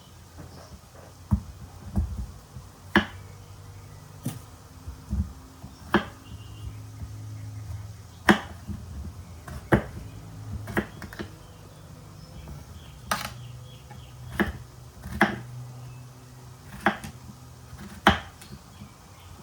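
Slow, irregular knife strokes on a cutting board: single sharp knocks about a second or so apart, over a low hum.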